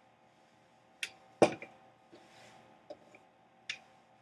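Rolling pin knocking against the countertop while pastry dough is rolled out: four separate sharp knocks, the loudest about a second and a half in.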